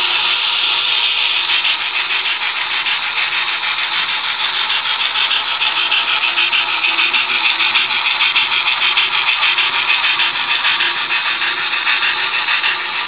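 Model steam train running past on the layout: a steady whirring rattle of running gear on the rails, with a quick regular beat coming in about halfway through as the rear locomotive and cabooses pass.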